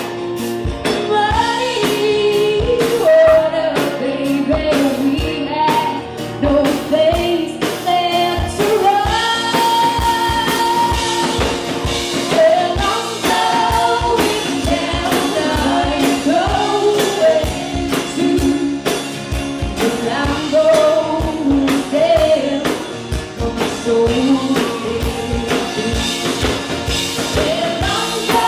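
Live band playing a song: sung vocals, possibly several voices together, over a steady drum beat and instruments.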